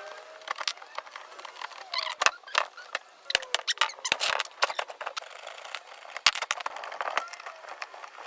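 Irregular sharp clicks and knocks, more than a dozen, spread unevenly, with faint squeaky glides near the start.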